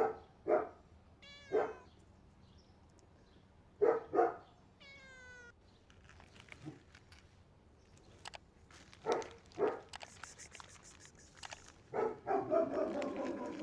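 Siamese cat meowing loudly and repeatedly, hungry and asking for food. The calls come mostly in short pairs, with a longer meow near the end.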